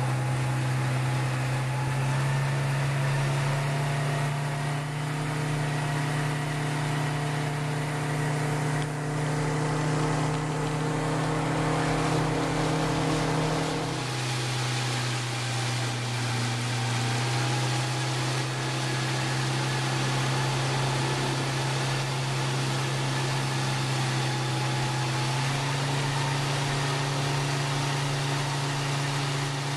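Outboard motor of an inflatable Zodiac boat running steadily. Its pitch steps up a little about two seconds in, drops sharply about halfway through, and rises again near the end as the throttle changes, over a steady hiss.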